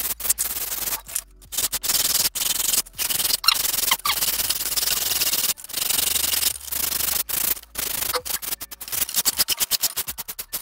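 Sandpaper on a wooden sanding block rubbed back and forth over a foam wing strip, rounding its leading edge into an airfoil shape. The strokes are about a second long at first and become short and quick near the end.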